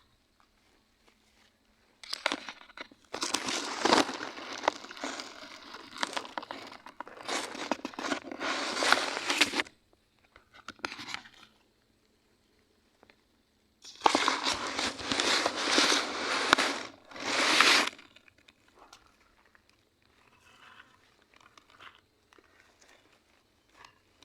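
Crunching, crumpling rustle of dry leaves and plant stems being handled and trampled, in two long stretches, the first about eight seconds long and the second about four, with faint scattered crackles between and after.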